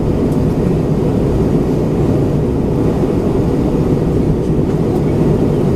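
Steady low cabin roar of an Airbus A320-232 in descent, heard inside the cabin: airflow over the fuselage mixed with its IAE V2500 turbofans, with a faint steady hum underneath.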